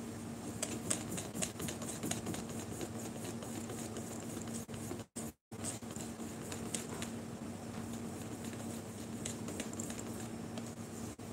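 Wire whisk beating batter in a bowl by hand, a fast, continuous run of light clicks and taps over a steady low hum. The sound cuts out for a moment about five seconds in.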